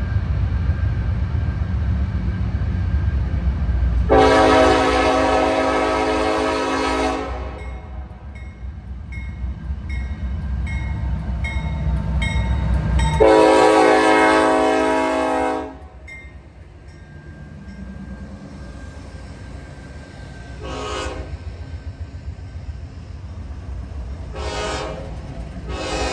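Norfolk Southern diesel locomotive's air horn blowing two long blasts, then two short ones, with another starting at the end. Under it runs the deep rumble of the locomotive, which drops away during the second long blast.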